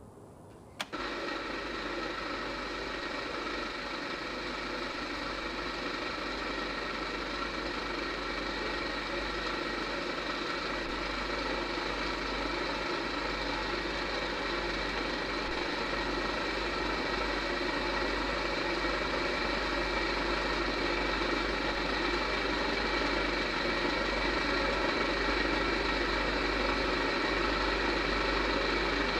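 An industrial dough-cutting machine switches on with a click about a second in, then runs with a steady mechanical hum that grows slowly louder.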